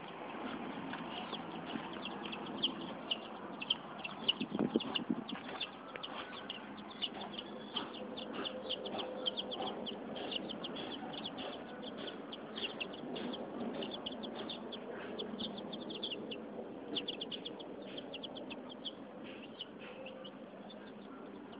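Chickens making a steady run of short high chirps and peeps, many a second, over low rumbling noise, with a few louder knocks about four to five seconds in.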